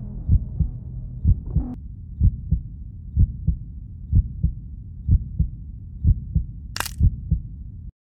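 Heartbeat sound effect: paired low thumps about once a second over a low rumble, with one brief sharp noise near the end before everything cuts off suddenly.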